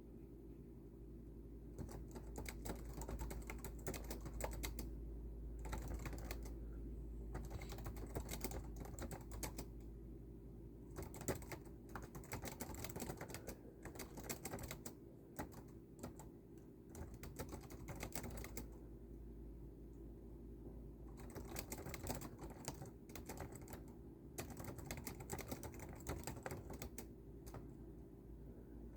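Typing on a computer keyboard: runs of quick keystrokes broken by short pauses, over a steady low hum.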